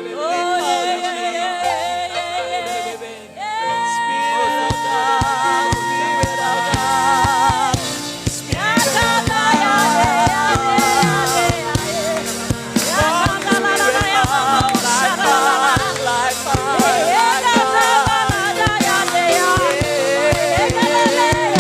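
Gospel worship music: a male lead singer's wordless, heavily ornamented vocal lines over sustained keyboard chords, with one long held note about four seconds in and a steady low drum beat entering there.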